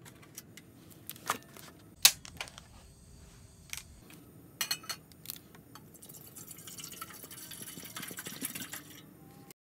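Sharp clicks and knocks as a Click2Cook portable butane stove is lit by its igniter knob and a metal camping pot is set on the burner. About six seconds in, water is poured from a plastic bottle into the pot, a steady pouring and filling sound that lasts until near the end.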